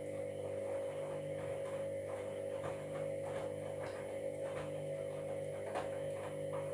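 Washing machine running at the start of a wash, with a steady whine and low hum and scattered light clicks. The owner hears a grinding in it and takes it for worn drum bearings.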